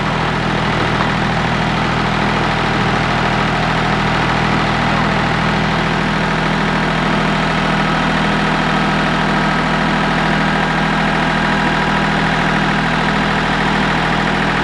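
Ford 1710 compact tractor's diesel engine running steadily at a constant speed.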